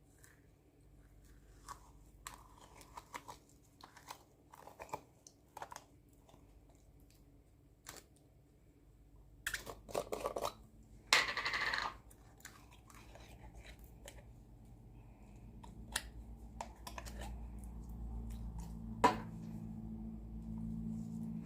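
Hands kneading and stretching slime: sticky clicks, pops and crackles, with a louder rustling burst about halfway through. A low steady hum builds in the second half.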